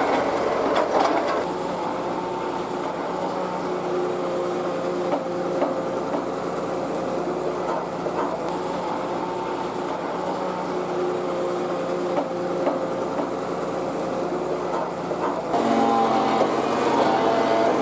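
Tata Hitachi EX200 LC excavator's diesel engine running steadily under work, with a few scattered knocks. Near the end the engine note jumps louder and higher as it takes more load.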